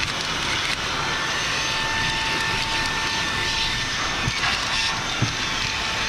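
Ecolumix 19 kPa cordless stick vacuum running steadily with its brush attachment removed: a steady motor whine over airflow hiss, with a couple of light knocks in the second half.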